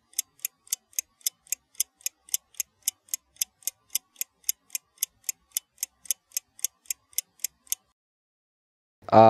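Clock ticking sound effect: even, sharp ticks at about four a second that stop suddenly about a second and a half before the end. A man starts talking at the very end.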